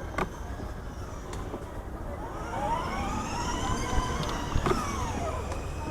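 Aftermarket siren on a Jeep Wrangler wailing: one slow rise and fall in pitch through the middle, over the steady low rumble of a car's engine and tyres on the road.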